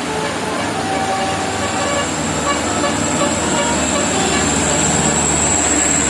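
Tour bus and traffic noise growing slowly louder, with short faint notes of a telolet musical horn over it.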